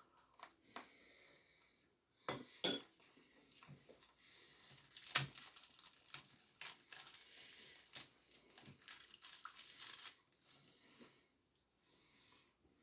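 Eating and handling noises at a table: two sharp clinks a couple of seconds in, then about five seconds of crinkling and rustling with scattered clicks that stops abruptly.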